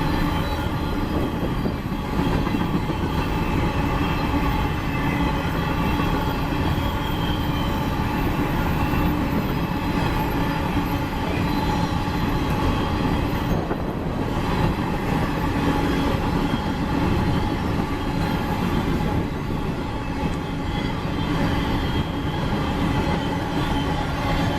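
Empty coal train rolling past at steady speed: a continuous rumble of steel wheels on rail and rattling empty cars, with faint steady high tones from the wheels.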